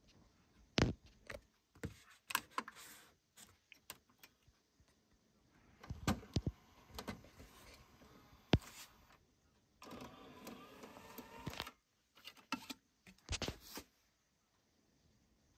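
Sony HCD-FR8 DVD receiver's disc drive ejecting a CD: faint clicks from the front-panel buttons and mechanism, a small motor whirring as the disc is driven out, and clicks and knocks of the disc being handled.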